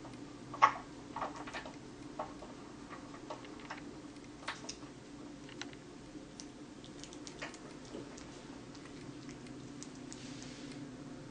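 Kitten licking and chewing a watermelon slice: irregular small wet clicks and smacks, with one sharper click about a second in, over a steady low hum.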